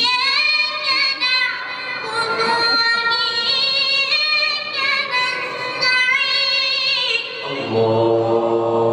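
A very high voice singing long, wavering melodic notes, unaccompanied. About seven and a half seconds in it stops and a low man's voice takes over with a held, steady note.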